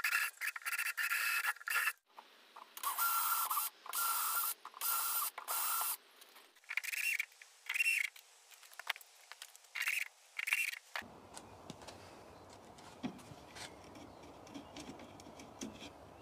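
Cordless drill motor whining as it bores a hole through a pine 2x4 for about two seconds, then in about eight short bursts as it drives screws into a metal trigger mechanism. The bursts stop about eleven seconds in.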